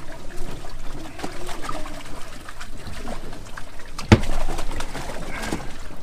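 Bass being handled out of a boat's livewell into a mesh weigh-in bag: water splashing and dripping, small clicks and rustles, and a sharp thump about four seconds in, the loudest sound.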